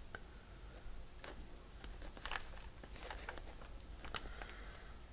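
Faint handling noise as fingers press and slide a small round embellishment on a paper journal page: a few light clicks and soft paper rustling.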